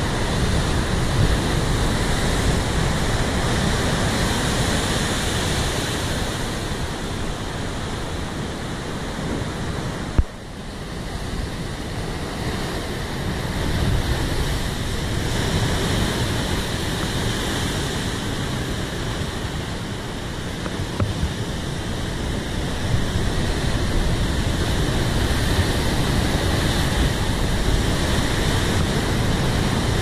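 Big ocean waves crashing against a rocky point, a continuous surf noise that swells and eases as each wave breaks and washes back through the rocks. A sharp click about ten seconds in, with a brief dip in level after it.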